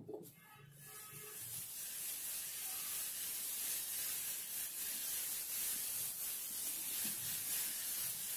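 Hand rubbing loose silver glitter across the surface of slime in a bowl: a steady, high scratchy hiss that builds over the first second and runs on evenly, after a short tap as the hand first lands.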